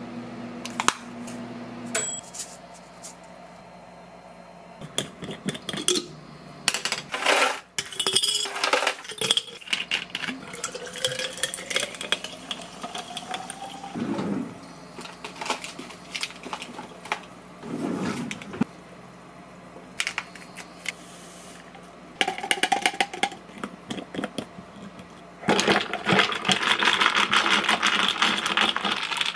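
Ice cubes clinking and clattering in a plastic bottle while a cold drink is made: scattered clatters and clicks, a pour that rises in pitch as the bottle fills partway through, and a dense rattle of ice being stirred with a straw near the end.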